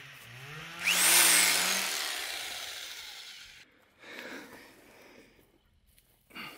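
An electric power tool's motor starts with a rising hum, then a loud rushing noise that fades out over about two and a half seconds. Softer rustles follow, and a short knock comes near the end.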